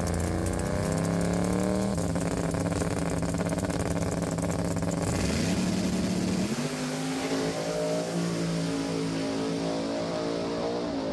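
Two drag-racing trucks' race engines held at high revs on the starting line, then launching about six and a half seconds in, the pitch climbing and holding as they pull away down the track.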